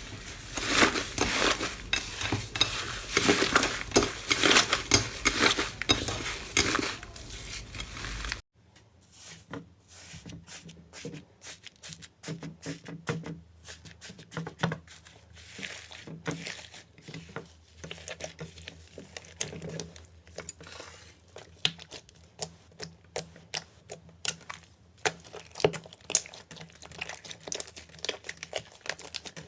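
Slime being squeezed and worked by hand close to the microphone: dense crackling and popping, which drops abruptly about eight seconds in to sparser, quieter pops and clicks.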